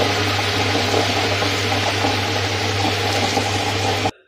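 Butterfly table-top wet grinder running: its stone rollers churn soaked dal and water into idli batter over a steady low motor hum. The sound cuts off suddenly near the end.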